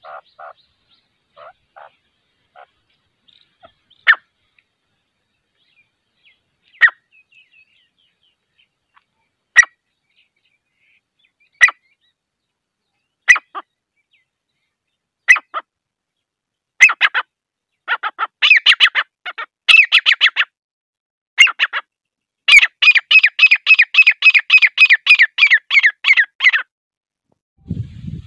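Female grey francolin calling. A few soft notes come first, then single loud, sharp calls about every two seconds. About seventeen seconds in these build into fast runs of repeated notes, and the longest run near the end lasts about four seconds.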